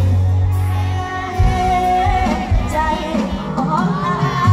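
Live amplified singing over a band's backing music with a steady bass beat, one sung note held for about a second near the middle.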